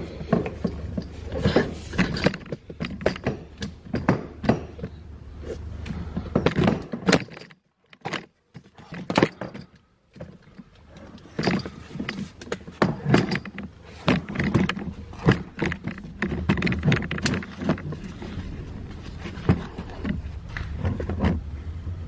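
Irregular clicks, knocks and rustles of handling inside a car's cabin over a low steady hum, broken by about two seconds of near silence roughly eight seconds in.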